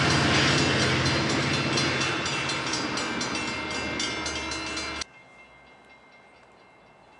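A train running past and away along the track, its wheels clicking in a quick even rhythm with a steady rumble, the noise slowly fading. About five seconds in it cuts off suddenly to a faint background hum.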